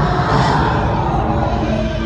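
Animatronic T. rex's recorded roar played through the exhibit's speakers, a rough call that slides down in pitch and fades, over dramatic background music and a low rumble.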